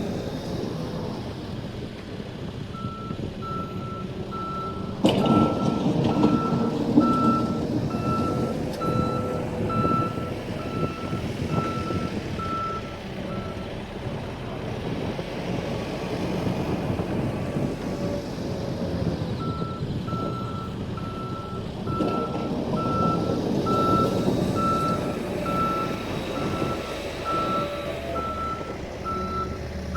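Backhoe loader's backup alarm beeping about twice a second while the machine reverses, over its diesel engine running. The beeping stops for several seconds near the middle, then starts again. The engine gets louder under load about five seconds in.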